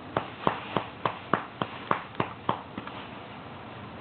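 A hand patting a baby's back to bring up wind: about nine soft, even pats in quick rhythm, stopping about two and a half seconds in.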